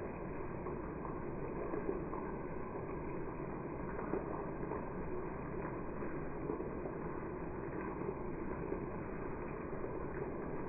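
Steady monsoon rain falling: a continuous, even hiss with a few faint ticks.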